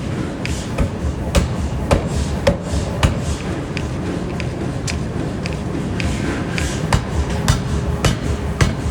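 Pneumatic forging air hammer striking hot metal in repeated heavy blows, about one or two a second and quickening near the end, over a continuous low machine rumble.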